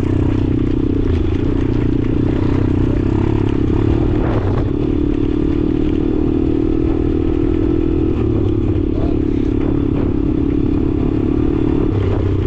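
Motorcycle engine running steadily, its pitch shifting slightly a few times.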